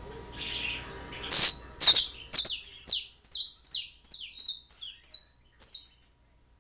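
Domestic canary singing a run of about a dozen loud, sharp high notes, each sweeping downward in pitch, at roughly two a second and quickening slightly, before stopping shortly before the end.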